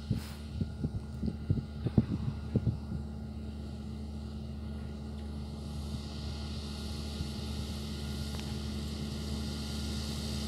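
Fendt 720 Vario tractor's six-cylinder diesel running steadily under load while pulling a potato planter, growing slightly louder as it approaches. A cluster of short low thumps sounds in the first three seconds.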